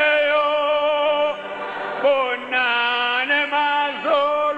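Singing: long, wavering held notes, moving to a new note about two seconds in and again near four seconds.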